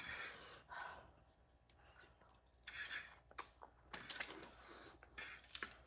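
Faint eating sounds over a noodle meal: short noisy slurps and chewing, a few seconds apart.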